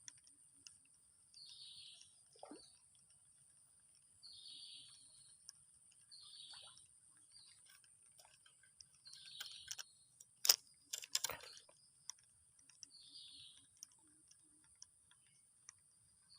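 A bird calling with short chirps every two to three seconds, over a steady high hiss, with a few sharp clicks about ten and eleven seconds in.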